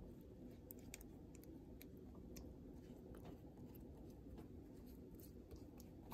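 Faint soft dabs and light clicks of a silicone pastry brush spreading egg wash over raw pie crust dough, over a low steady hum.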